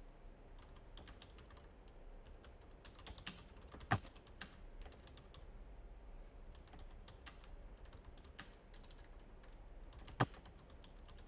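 Typing on a computer keyboard: a long run of quick, faint keystrokes, with a couple of louder key taps about four seconds in and near the end.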